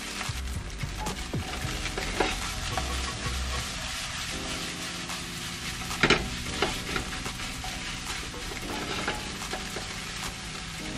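Fried rice with cabbage sizzling in a nonstick frying pan while a spatula stirs and turns it, scraping and knocking against the pan a few times. The loudest knock comes about six seconds in.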